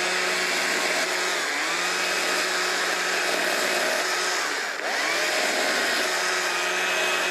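Small-bar gas chainsaw with .043-gauge chain running at high revs as it makes up cuts into a small pine branch. The revs dip briefly twice and pick back up.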